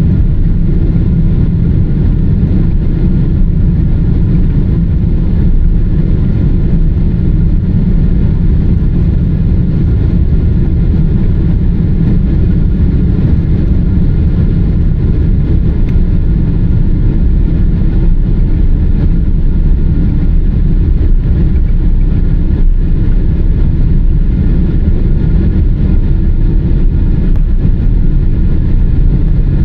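Cabin noise inside a climbing Boeing 777-300ER: a steady, deep rush of airflow and GE90-115B engine noise, with faint steady tones above it.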